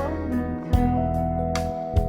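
Background music: gentle acoustic guitar with bass, plucked notes and chords at an easy pace.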